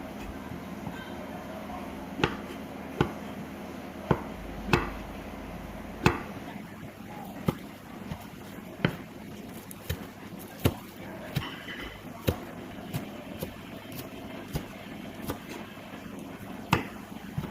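Knife chopping on a cutting board: single sharp strokes at an unhurried, uneven pace, roughly one or two a second, over a steady low background hum.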